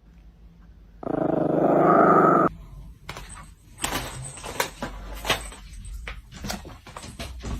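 A pet animal growls loudly for about a second and a half, rising in pitch at the end. It is followed by a run of irregular clicks and scuffling.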